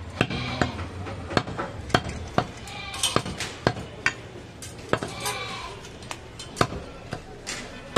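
A butcher's knife chopping goat meat on a wooden log block: sharp knocks at an irregular pace, about one or two a second, as the blade cuts through and strikes the wood.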